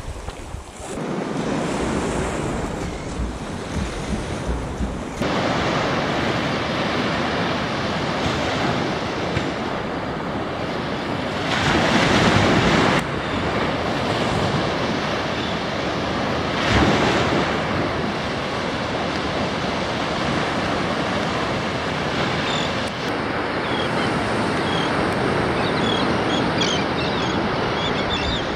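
Waves washing in on a sandy shore, with wind buffeting the microphone, as a steady rushing noise that swells louder a couple of times. In the last few seconds, short high calls come from a flock of seabirds taking off.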